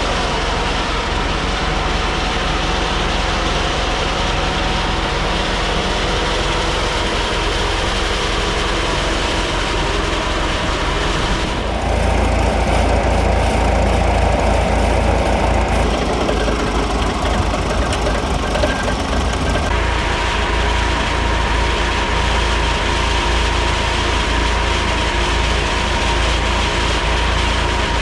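A vintage tractor engine running steadily, driving a flat-belt sawmill. About twelve seconds in it grows louder and rougher for some eight seconds, then settles back.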